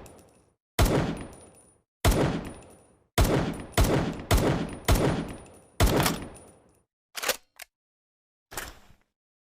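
Homemade M1911 pistol gunshot sound effect: seven sharp shots, the first few about a second apart, then quicker, each with a long echoing tail. Near the end come a few small, short clicks.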